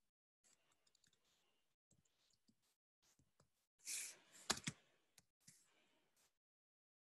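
Near silence, broken about four seconds in by a short rush of noise and then two sharp clicks in quick succession.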